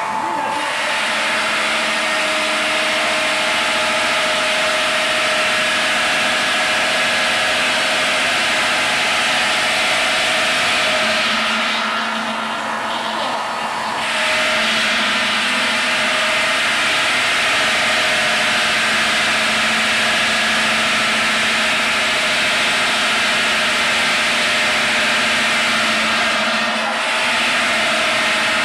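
DTJ 100 stone cutting machine sawing through a stone block under a water spray: a loud, steady grinding hiss of blade on wet stone over a motor hum. The cutting noise eases briefly about twelve seconds in and again near the end.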